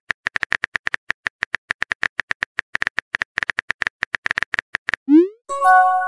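Simulated phone-keyboard key clicks from a texting-story app, tapping quickly and unevenly as a message is typed. About five seconds in, a short rising whoosh as the message sends, then a bright chime of several tones.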